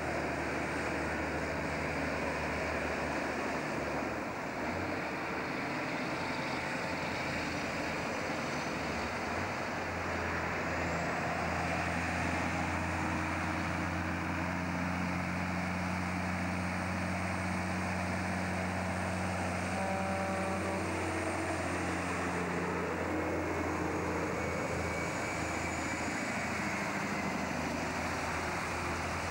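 Heavy diesel engines of loaded logging trucks running steadily under load. The engine pitch shifts about three quarters of the way through, and near the end a truck passes close by.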